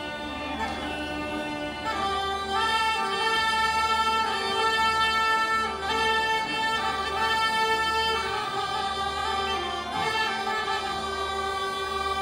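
Bulgarian gaida bagpipes playing a folk melody in long held notes over a steady drone.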